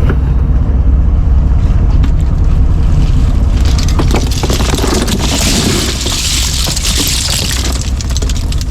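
Fishing boat's engine running steadily, with a hissing rush of water joining in from about three and a half seconds in and fading near the end.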